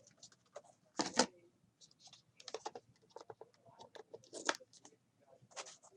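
Light, irregular clicks and rustles of small objects being handled on a desk, the loudest click about a second in.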